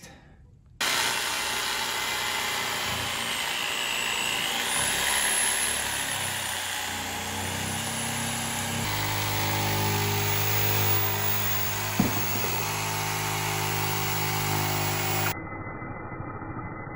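Jigsaw cutting through a white pine countertop board, starting suddenly about a second in and running steadily, with one sharp knock partway through.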